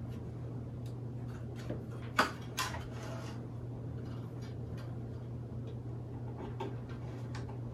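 Thin frame wire being threaded through the holes of a wooden beehive frame: light scattered ticks and scrapes of the wire against the wood, with two sharper clicks a little over two seconds in, over a steady low hum.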